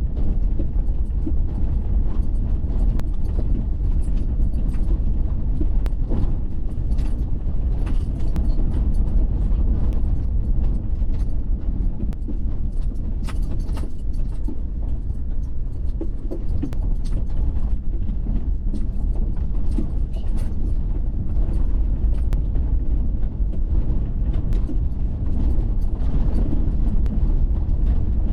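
Waterfall rushing steadily, a dense even rumble that is heaviest in the low end.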